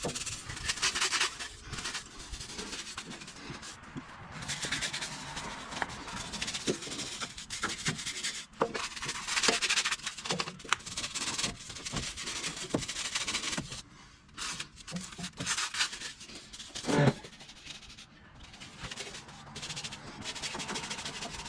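Stiff-bristled brush scrubbing a tyre in irregular back-and-forth strokes, with a few knocks and one sharp knock about three-quarters of the way through.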